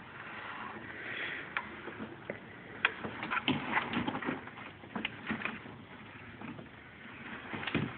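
Irregular clicks and knocks, mostly in a cluster in the middle and a few near the end: tools and parts being handled while working on a car's AC system.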